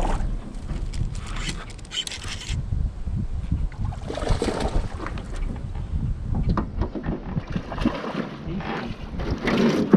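Wind rumbling on the microphone in a small open boat, with scattered knocks and clatter and short bursts of rushing noise about 2, 4½ and 9½ seconds in.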